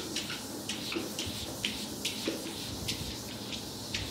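Felt whiteboard eraser wiping across a whiteboard in quick back-and-forth strokes: a series of short swishes, about three a second.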